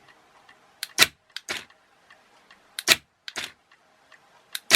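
Electric car door lock actuator snapping the sliding bolt out and back, a sharp click followed by a second about half a second later, three times, with fainter ticks between. It is in momentary mode: it operates while the remote button is held and releases as soon as the button is let go.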